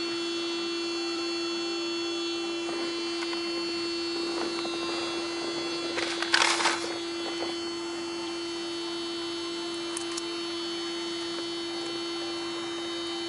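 A steady electrical hum with many overtones, broken about six seconds in by a short burst of noise and later by a couple of faint clicks.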